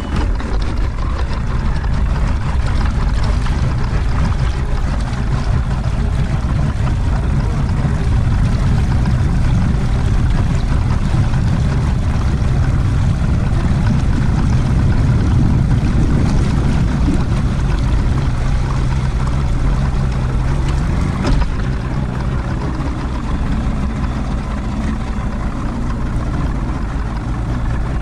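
Bass boat's outboard motor running steadily under way, with the rush of wind and water over the moving hull.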